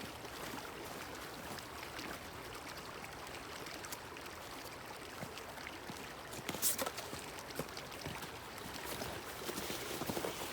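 Crunching, rustling footsteps of someone walking a loaded bicycle out along a wooded trail, with irregular clicks and knocks and one louder knock about two-thirds of the way through.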